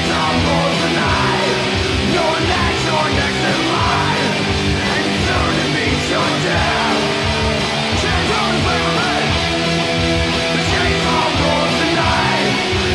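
Thrash metal band recording: distorted electric guitars and bass playing loud and steady.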